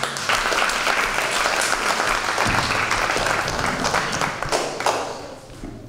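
Audience of children and adults applauding, many hands clapping in a dense patter that starts at once and dies away near the end.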